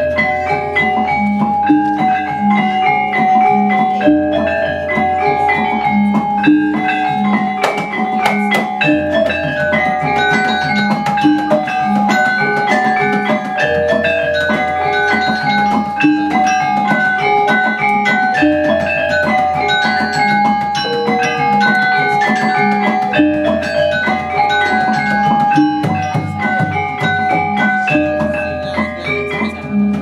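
Gamelan ensemble playing: metallophones ring a repeating pattern of short notes over a deep gong tone that is renewed about every five seconds.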